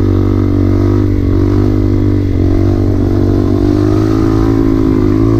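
Low-powered dirt bike engine pulling hard under throttle as the clutch is popped in second gear to lift the front wheel; its pitch climbs, dips briefly a little over two seconds in, then climbs again.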